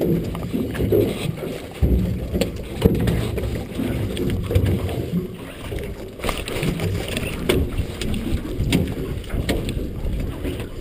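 Muffled, irregular knocks and rustling of a salmon gillnet being hauled and picked in a boat, heard through a waterproof camera case.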